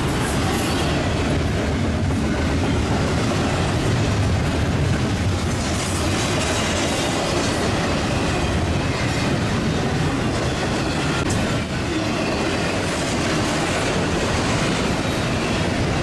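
Union Pacific freight train rolling past at speed, a steady rumble with the clatter of wheels over the rail joints.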